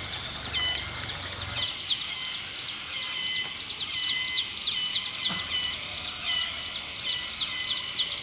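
A bird calling: a rapid run of high, short chirps, each sliding down in pitch, several a second.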